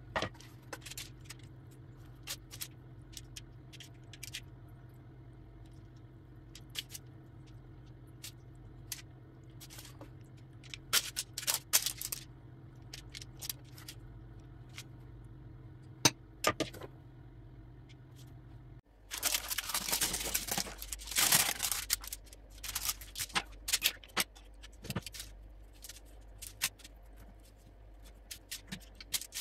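Scattered clicks and scrapes of a metal cake server and silicone spatula working batter across a parchment-lined baking tray, over a steady low hum. A little past halfway the hum stops and a metal spatula scrapes more loudly for a few seconds as it spreads cream over a baked sheet on baking paper, then goes on with lighter taps and scrapes.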